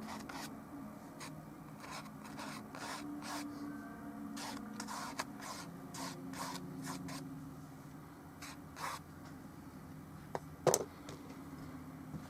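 Oil-paint brush strokes rubbing and scrubbing on the painting surface in short, irregular strokes, with one sharp tap about ten and a half seconds in, over a low steady hum.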